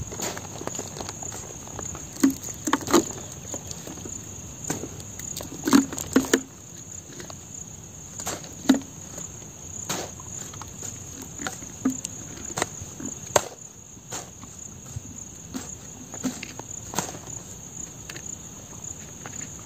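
Crickets chirring in a steady high-pitched trill, with scattered sharp clicks and knocks from a plastic water bottle being handled; the loudest knocks come about two to three seconds in, around six seconds and near nine seconds.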